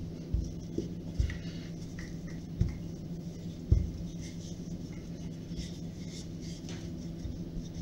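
Hands pressing and slapping a ball of chilled shortbread dough flat on a countertop, making several dull thumps, then a wooden rolling pin rolling over the dough with a faint scraping rustle. A steady low hum runs underneath.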